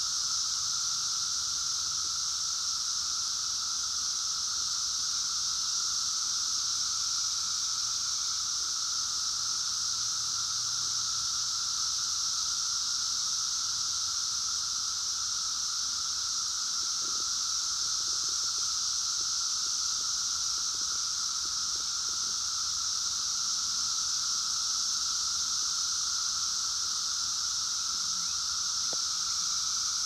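Dense chorus of 17-year Brood X periodical cicadas (Magicicada): a steady, unbroken high-pitched drone with a lower droning pitch beneath it, holding level throughout.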